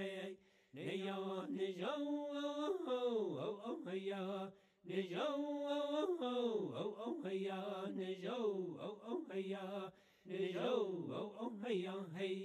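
A man singing an unaccompanied chant, held notes sliding up and down in phrases, with brief pauses between them.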